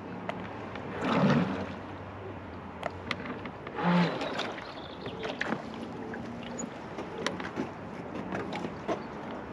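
Small electric outboard motors running at low speed on a manoeuvring boat, with water lapping. The motors swell louder briefly twice, about a second in and about four seconds in, and there are scattered light clicks.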